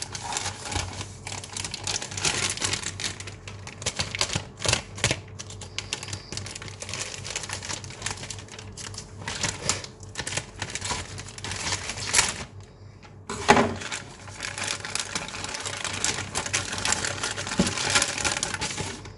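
Plastic courier mailer bag crinkling and crackling as it is slit with a folding knife and pulled open by hand: dense, fast crackles throughout, a brief lull about two-thirds of the way through, then one loud crackle as the handling resumes.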